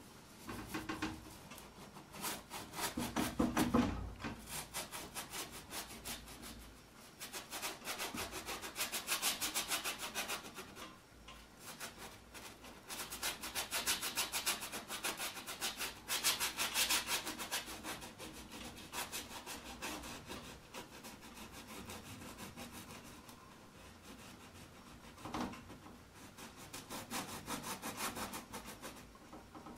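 Paintbrush scrubbing paint onto a stretched canvas: quick back-and-forth strokes in bursts of a few seconds, with short pauses between them.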